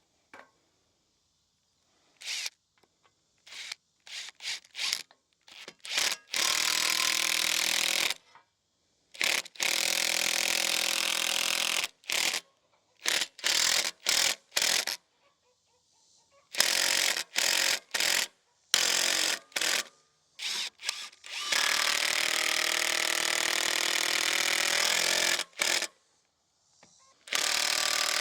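Power drill driving screws into timber: a few short trigger pulls, then several runs of steady motor whine two to four seconds long with pauses between them.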